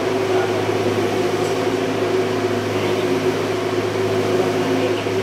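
Steady drone of running machinery in a ship's engine room: a constant low hum with a steady higher tone over it, unchanging throughout.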